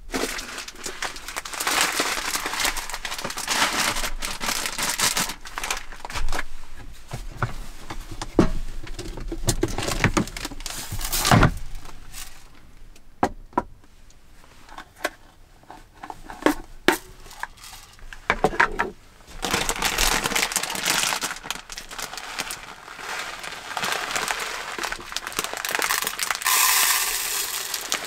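Plastic packaging rustling and crinkling as it is handled at a wooden table, with scattered clicks and knocks and one heavier thump about halfway through. Near the end, contents pour from a bag into a plastic cup.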